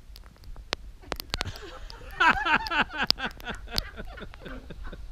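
A man and a woman burst out laughing about two seconds in, a quick run of laughs that tails off near the end. Scattered sharp clicks and a steady low rumble lie underneath.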